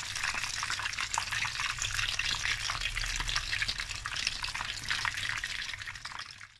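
Battered prawn skewers deep-frying in plenty of hot sunflower oil: a steady, dense sizzle with fine crackles.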